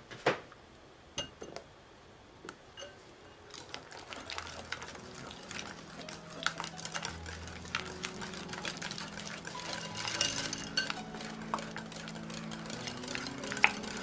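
Wire whisk beating thick matcha custard in a glass bowl, its wires clinking and scraping against the glass. It starts as a few separate taps, then becomes quick, steady whisking from about four seconds in as cubes of butter are stirred in until they melt.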